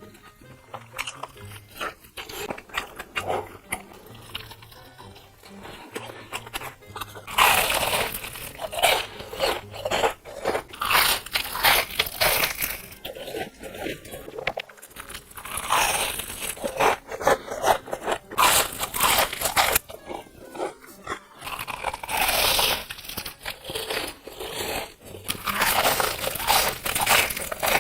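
Close-miked eating: crunchy bites and chewing in quick succession, growing much louder about seven seconds in, with music underneath.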